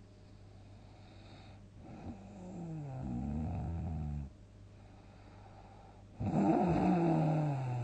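Two loud snores from a sleeping person. The first builds up about two seconds in; the second starts abruptly near the end and is louder, each with a falling pitch. A steady low hum sits underneath.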